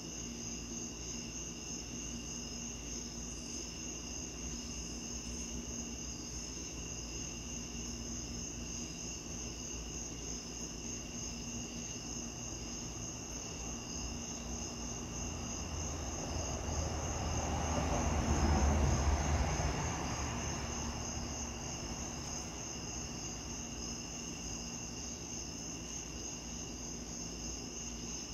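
Night insects chirping steadily, a pulsing trill at several high pitches. About halfway through, a passing vehicle rises out of it, is loudest about two-thirds of the way in, then fades away.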